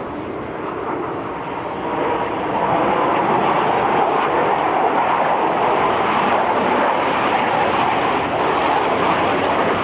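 Jet aircraft flying over, its engine noise swelling about two seconds in and then holding loud and steady.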